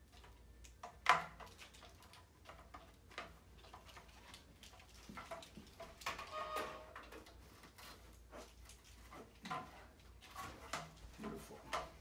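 Scattered light clicks and knocks from metal rack parts and a heat-panel cord being handled during assembly of a metal reptile rack, with one sharper knock about a second in.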